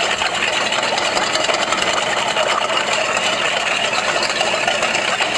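A kitchen utensil stirring rapidly against the inside of a stainless steel mixing bowl: a steady, fast metallic scraping clatter. The liquid being stirred is rice vinegar with sugar and salt for sushi rice seasoning, stirred until the sugar dissolves.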